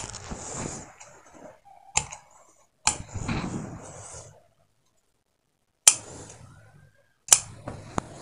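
Large tailor's shears cutting blouse fabric: several sharp snips of the blades closing, with a longer rasp of cloth being cut about three seconds in.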